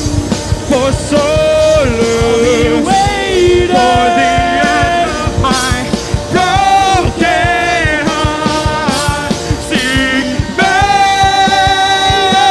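Live rock band: a male singer holds long sung notes over electric guitars, bass guitar and a drum kit.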